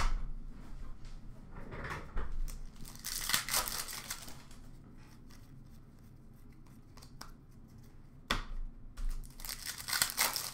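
Upper Deck hockey card pack wrapper being torn open and crinkled by hand, in two stretches: about three seconds in and again near the end. A sharp knock at the very start and another about eight seconds in.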